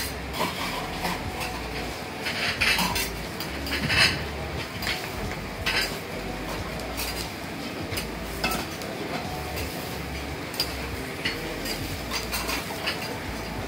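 Metal spatulas scraping and clacking against a steel teppan griddle as okonomiyaki are cooked: scattered sharp clinks and scrapes, busiest a couple of seconds in, over a steady kitchen background.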